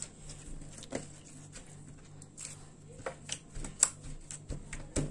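Clear, rubbery slime being squeezed and kneaded by hand, giving irregular wet clicks and pops, the loudest a little under four seconds in.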